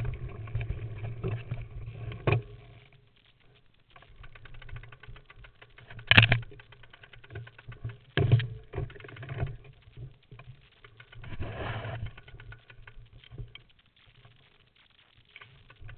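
Mountain bike rattling and knocking as it moves over a rough, rocky trail, with a rumbling stretch at first, then sharp clunks, the loudest about six and eight seconds in, between quieter moments.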